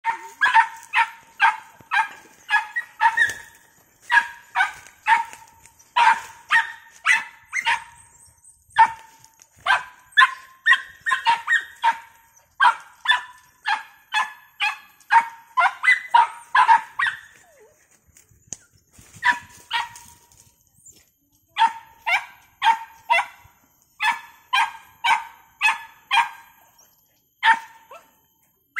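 A dog barking over and over at the foot of a palm tree while hunting a rat. The barks are short and sharp, about two a second, in runs broken by brief pauses.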